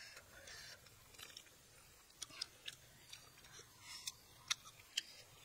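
Close-up eating sounds of two people chewing grilled fish, with several sharp, crisp crunches spread through.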